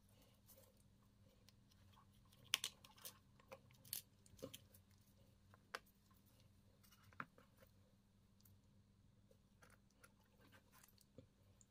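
Sparse light clicks and taps of a plastic Mercedes-Benz key fob housing and its small parts being handled, a handful of sharper clicks in the first half and only faint ones after.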